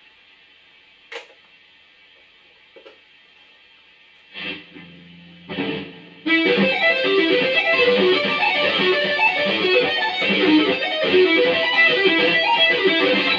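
Electric guitar, a JEM-style copy with DiMarzio pickups, through a Zoom G1Xn multi-effects pedal and a Marshall MG50DFX amp. At first there is only amp hiss, with a click and two single ringing notes. About six seconds in, a fast, continuous two-handed tapping run starts.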